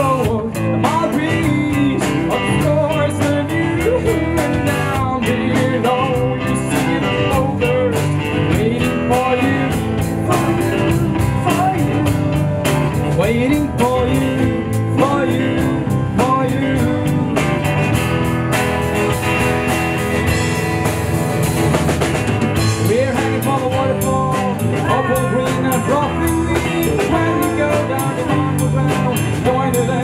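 Live band playing a rock song on acoustic and electric guitars and drum kit, with a man singing.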